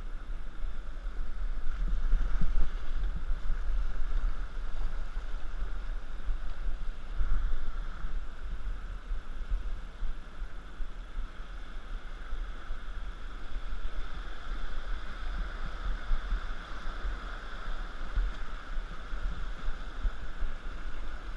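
Steady rush of river whitewater heard from a raft running a rapid, with a deep rumble underneath that swells slightly a couple of times.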